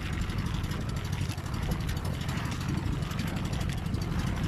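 Small fishing boat's engine running steadily under way, with water rushing and splashing along the hull.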